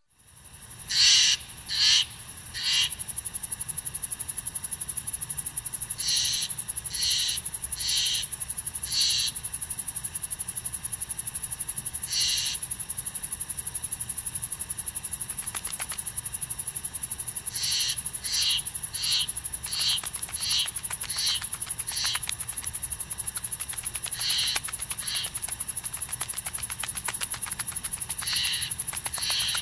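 Summer countryside ambience: a steady, very high insect drone, with a bird giving short repeated calls in groups of two to seven.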